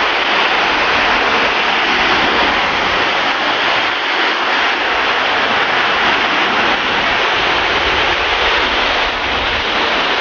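A tall waterfall heard close up: a loud, steady rush of falling water.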